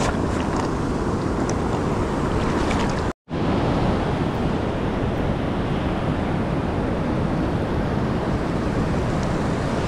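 Ocean surf breaking and washing up the beach, a steady rush. It cuts out abruptly for an instant about three seconds in.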